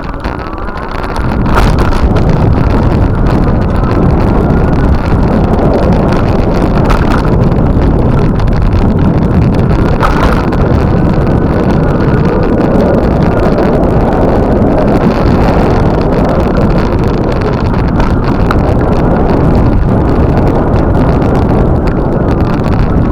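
Wind rushing over the microphone, loud and steady after it rises about a second in.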